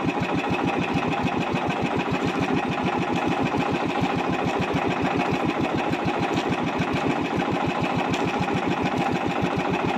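Small outrigger fishing boat's engine idling steadily with a rapid, even putter.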